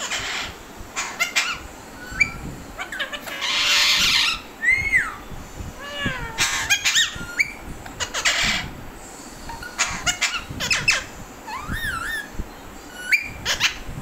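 Alexandrine parakeets calling: a string of short squawks and rising-and-falling whistled chirps, with one harsh screech lasting about a second around four seconds in.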